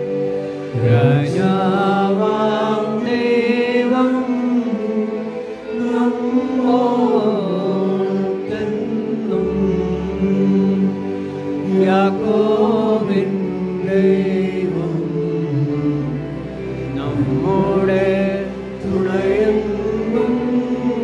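A slow, chant-like hymn sung by voices over a steady held accompaniment, in long phrases with brief pauses between them, as sung at a Catholic Mass.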